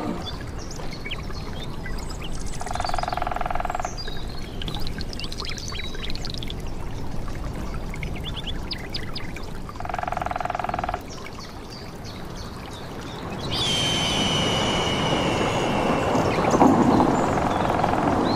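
Nature ambience: a steady rush of flowing water with scattered bird chirps. Twice a short buzzing call sounds, about a second long each. From about three-quarters of the way through, a louder, longer buzzing call with a high steady tone joins in over the water.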